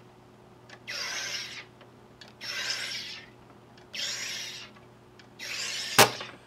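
SodaStream soda maker carbonating a bottle of water: the gas button is pressed in short bursts, four hisses of carbon dioxide about every second and a half. A sharp, loud snap comes near the end.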